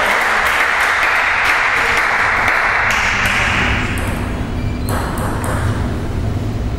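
Spectators applauding a won point, the clapping dying away about four seconds in. Then a few short, sharp bounces of a table tennis ball as the server readies to serve.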